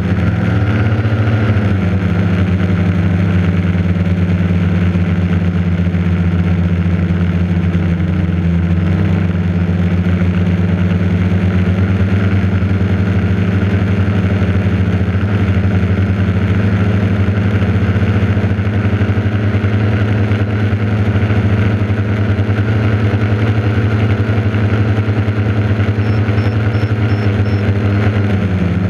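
Quadcopter's electric motors and propellers humming steadily, picked up by the GoPro mounted on the craft, with brief dips in pitch about a second in, around nine seconds and near the end as the throttle changes.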